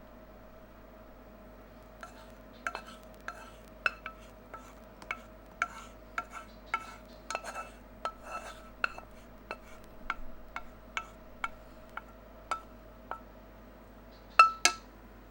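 A metal spoon stirring in a glass, clinking against its side about twice a second with a short ringing note each time; two louder clinks near the end.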